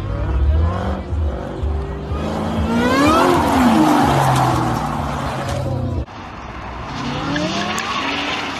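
Ford Mustang engine revving up and down while its tyres squeal and skid across the pavement as the car slides. After a sudden cut about six seconds in, another Mustang's engine revs up.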